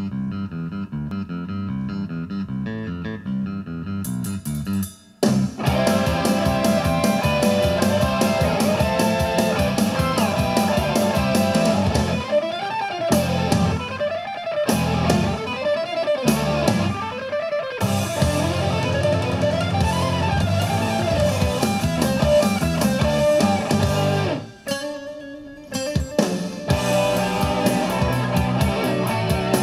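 Guitar-driven rock music with electric guitar and bass, played back through a home stereo system's loudspeakers. It starts softer, the full band comes in about five seconds in, and it drops away briefly near the end before resuming.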